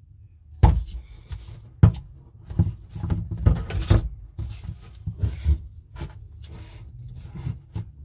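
Rubber flexible pipe couplings with stainless hose clamps being handled, knocked and rubbed against a drain pipe fitting as they are tried for fit: irregular clunks and scrapes, with sharper knocks about half a second and about two seconds in.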